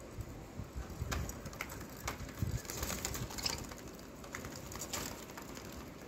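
Budgerigars chattering and chirping softly, with scattered light clicks as one pecks seed from a palm.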